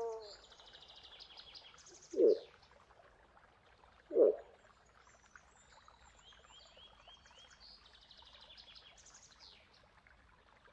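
Two short, loud moose grunts, about two and four seconds in, over birdsong trilling and chirping in the background.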